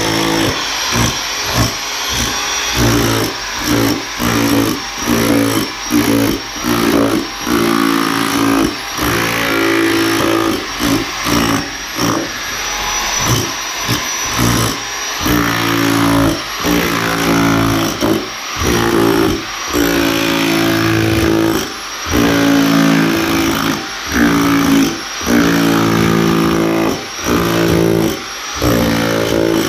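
Harbor Freight SDS rotary hammer with a wide flat chisel bit, hammering and chipping through a concrete shower base. It runs in short loud stretches broken by brief pauses about every second or two.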